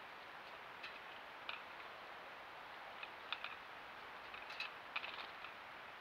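Small birds at a metal-mesh tube seed feeder: faint, irregular short ticks and taps, a few early on and a quick cluster a little before the end, over a steady hiss.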